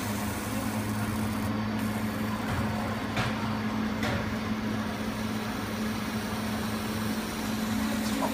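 Fiber laser marking machine running as its beam traces a circle on a brass plate: a steady hum with a low tone, and two faint ticks about three and four seconds in.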